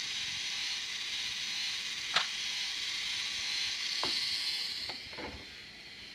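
LEGO Mindstorms EV3 motor whirring steadily through its gears as it turns a spool and pays out string, with a few light clicks; the whirring dies away about five seconds in.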